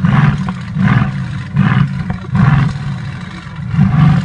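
Mercedes-AMG GT's twin-turbo V8 revved while standing still: five short throttle blips over a steady idle, four coming about a second apart and the last after a longer pause.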